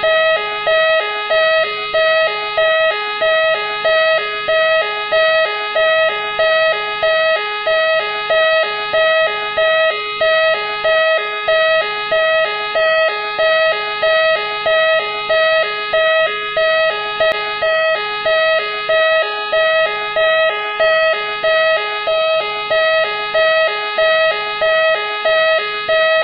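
Machine X police car siren sounding continuously in a steady repeating cycle of pitched, electronic-sounding pulses, a little faster than once a second.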